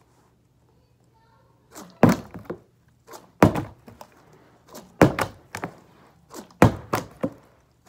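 A mini plastic water bottle being tossed end over end and landing with hard thunks, four main landings about a second and a half apart starting about two seconds in, each followed by a few smaller knocks as it settles or tips.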